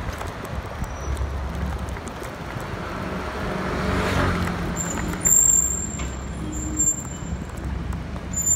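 City street traffic: motor vehicles running past with a steady low rumble, swelling about four seconds in. From about five seconds in a thin, high squeal comes and goes over it.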